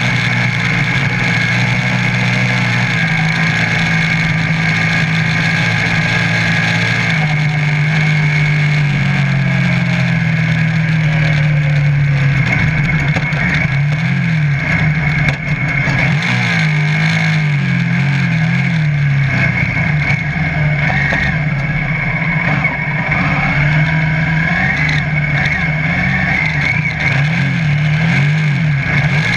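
Off-road buggy engine running hard while driving, its pitch swinging up and down again and again as the throttle is worked, with a steady high whine alongside.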